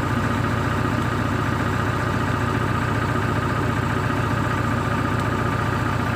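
JCB VMT 860 road roller's diesel engine idling steadily.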